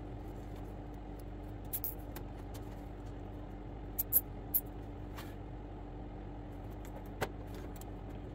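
A few short, sharp clicks and ticks as thin low-voltage control wire is handled and routed down a furnace cabinet, the loudest cluster about halfway through. A steady low hum with a faint steady tone runs underneath.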